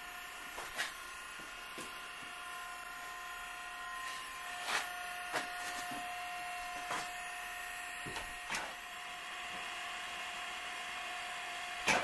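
Handheld pneumatic tire buffer running with a steady whine against truck tire rubber, its pitch shifting about four seconds in, with a few light knocks.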